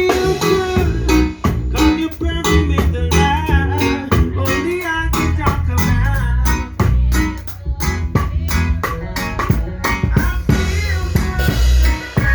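A live band playing a song, with guitar and bass guitar over a steady drum beat.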